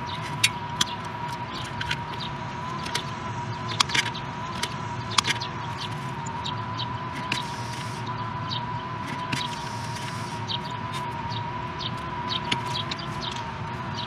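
Scattered sharp clicks and light knocks of a thin crankcase-heater wire being handled and pushed through the wiring inside a rooftop AC unit's control panel, over a steady high-pitched whine and a low rumble.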